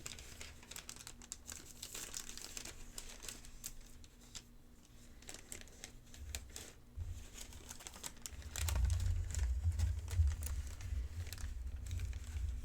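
Sheets of paper being crinkled and handled close to the microphone, a dense run of fine crackles, with dull low thuds joining in after about eight and a half seconds.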